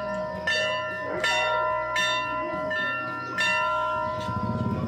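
Hindu temple bell struck again and again, about once every three-quarters of a second, each strike ringing on into the next. A low hum comes in near the end.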